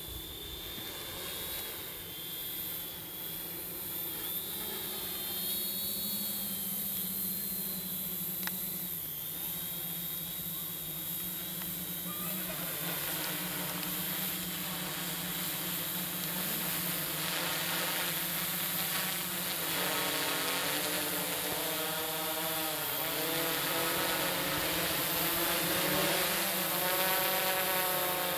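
Tarot 680 Pro hexacopter's six electric motors and propellers buzzing in flight, the pitch wavering as the motor speeds shift. Faint at first, it grows steadily louder, with the buzz clearer and stronger over the second half.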